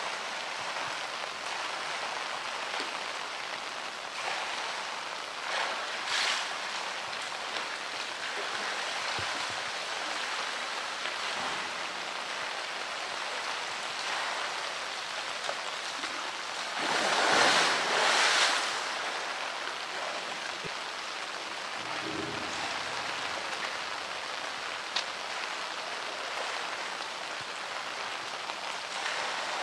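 Heavy rain falling steadily, a constant hiss of a downpour on the pool water. A little past halfway a louder rush of splashing water swells for about two seconds.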